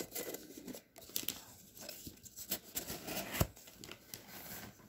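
Packaging rustling and crinkling as items are handled, with scattered small clicks and one sharper knock about three and a half seconds in.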